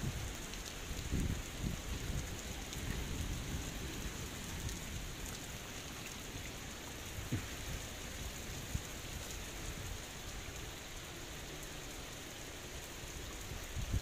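Heavy rain pouring down steadily onto a waterlogged terrace and puddles, an even hiss of a downpour. There are uneven low rumbles in the first couple of seconds.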